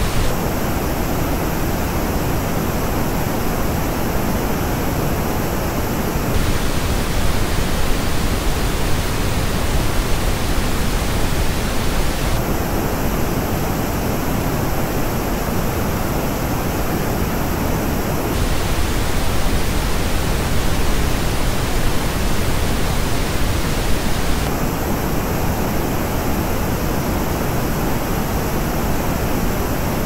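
Pink noise test signal, switching about every six seconds between the flat original and the same noise reproduced through Audeze LCD-X planar-magnetic headphones on a measurement head. The headphone version has clear gaps in the upper treble, the sign of dips in the LCD-X's frequency response.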